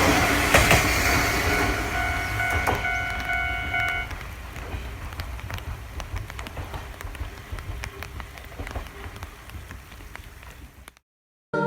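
Kominato Railway diesel railcar running away from a level crossing, its low rumble and wheel clicks fading steadily; a steady high tone stops about four seconds in. The sound cuts off abruptly near the end.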